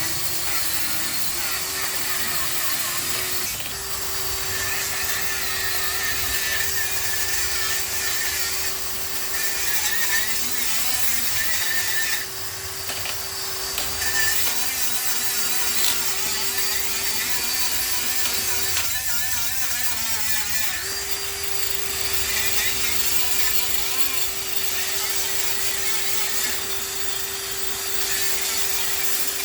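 Handheld electric power tool running steadily at one constant pitch, with an abrasive hiss as it sands or grinds. The tool briefly lets off a few times, most clearly for about two seconds a little past the middle, then starts again.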